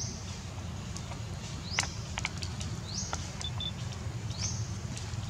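Outdoor forest ambience: a short, high call that sweeps upward and then levels off repeats about every second and a half, with scattered light clicks and ticks over a low steady rumble.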